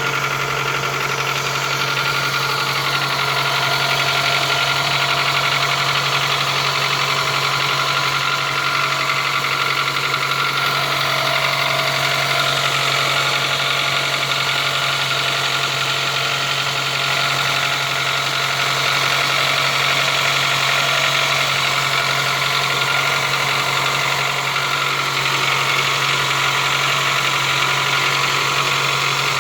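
Toyota 2AZ-FE 2.4-litre four-cylinder engine idling steadily with a fast, regular knock in its running.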